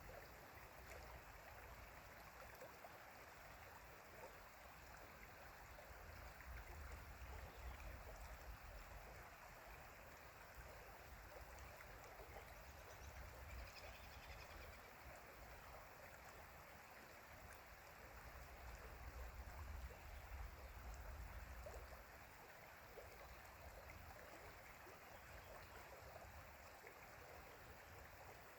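A mountain stream running with a steady, faint rush of water. A low rumble rises under it twice, briefly.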